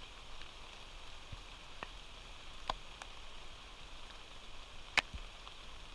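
Steady faint hiss of falling rain, with a few sharp taps scattered through it, the loudest about five seconds in.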